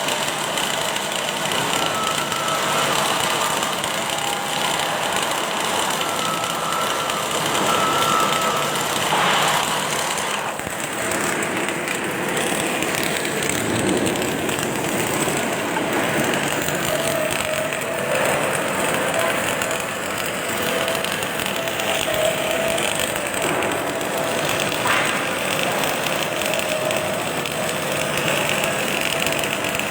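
Continuous industrial din of automatic welding machinery, a steady noisy hiss with a few held machine tones that come and go.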